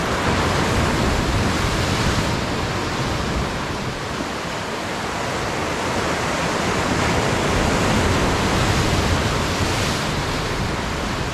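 Ocean surf washing over shoreline rocks: a steady rushing that swells and eases slowly.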